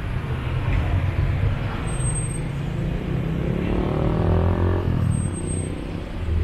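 Road traffic: vehicle engines running with a steady low rumble. About halfway through, one engine note rises in pitch as it speeds up.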